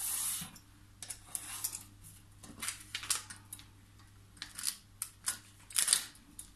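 Craft knife scoring a clear plastic laminating sheet against a metal ruler on a hard glass mat, then the sheet being pulled apart and handled: a run of short, scattered scrapes, crackles and clicks.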